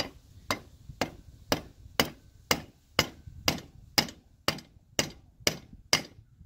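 Rubber mallet tapping the pinion gear into the rear differential housing of a Can-Am Renegade, seating it in a new needle bearing. The taps are sharp and even, about two a second, thirteen in all.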